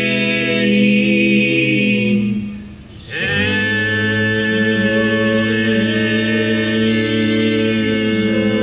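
Men's bluegrass gospel harmony sung a cappella, holding long chords. They break off briefly about two and a half seconds in, then take up another long held chord.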